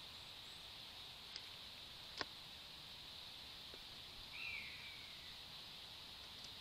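Faint outdoor ambience with a steady high hiss, two sharp clicks about one and a half and two seconds in, the second louder, and a short falling whistle a little past halfway.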